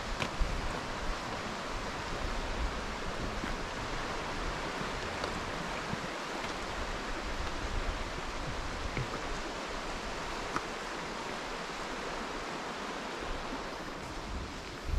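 Steady rushing of flowing water from a fast mountain river or stream.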